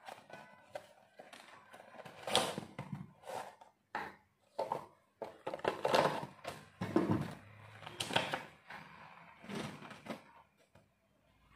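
Hands unpacking a clip-on microphone's packaging. Irregular rustles, crinkles and soft knocks come every second or so as the box and black wrapper are handled.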